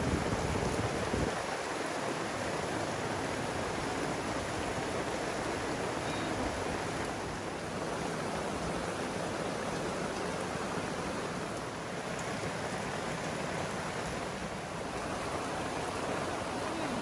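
Steady rain falling, an even unbroken wash of sound.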